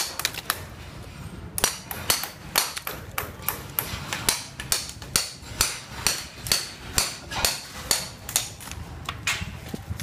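Hammer striking a brick-and-plaster wall in quick, sharp, even blows, about three a second, with a short pause about a second in.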